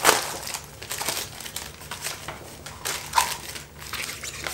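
Crinkling and rustling of a small packaged dry bag being pulled open and handled, in irregular crackles, the loudest right at the start.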